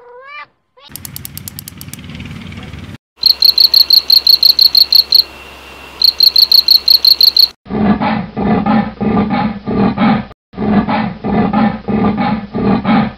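A string of separate animal calls: a cat's meow ending right at the start, then a fast train of loud, high-pitched chirping pulses, about five a second, and from about eight seconds in, cheetahs calling in a steady rhythm of low pulses, about three a second.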